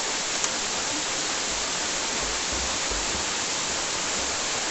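Waterfall rushing in a steady, even roar of falling water, with a single brief click about half a second in.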